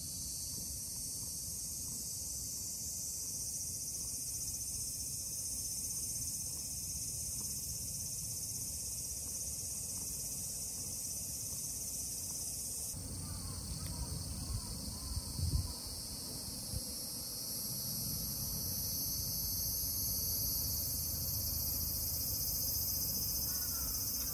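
A steady, high-pitched chorus of summer insects, its character shifting abruptly about halfway through. A few low thumps of handling noise come soon after the change.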